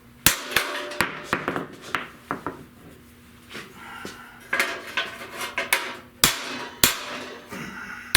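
Hammer striking a steel sheet-metal radiator support panel, about a dozen irregular blows with a metallic ring, with a pause of about two seconds in the middle. The blows are knocking down a high spot to flatten and straighten the panel.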